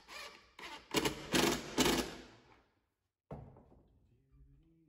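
Cordless impact driver driving a pocket-hole screw into a wooden face frame, rattling in fast hammering strokes for about two and a half seconds and stopping as the screw seats. A single knock follows about three seconds in.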